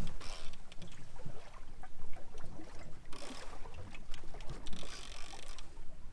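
Boat engine running at trolling speed, a steady low hum under wind and water noise, with scattered short clicks and knocks.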